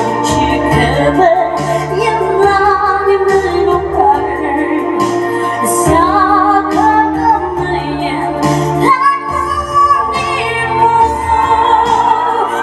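A woman singing a melody into a microphone, amplified over band accompaniment with steady bass notes and regular drum hits.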